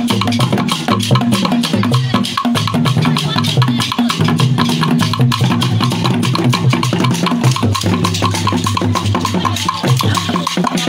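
Traditional masquerade percussion music: drums and other percussion playing a fast, dense rhythm of many strokes over low pitched tones that change in steps.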